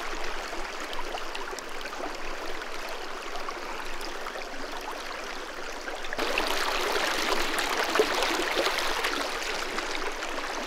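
Close-up river water rushing and splashing over rocks at the bank's edge, picked up by a shotgun microphone pointed down at the surface. About six seconds in the sound grows louder and fuller as the microphone is moved a short way to where two currents meet.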